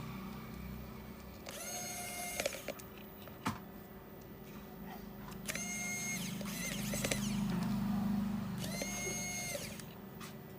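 A small motorised tool spinning up, holding speed briefly and spinning down, three times in short bursts a few seconds apart, with a couple of sharp clicks in between.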